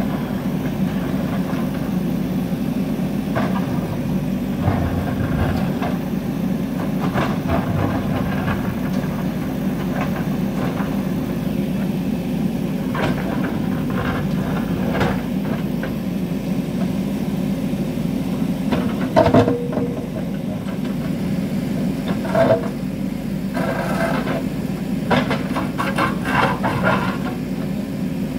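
JCB 3DX backhoe loader's diesel engine running steadily under load as its backhoe bucket digs into rock, with scattered scraping and clanking of the steel bucket against stone, the loudest knocks about two-thirds of the way through and a run of them near the end.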